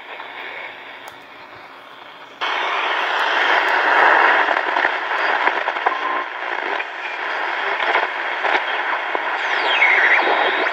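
Hitachi Hi-Phonic WH-888R portable radio's speaker hissing with static while being tuned. The noise jumps much louder about two and a half seconds in, and a whistle slides down in pitch near the end.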